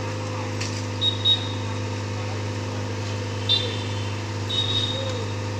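Excavator engine running steadily at a low hum, with a few short high-pitched tones at about one second, a second and a half later, and a longer one near the end.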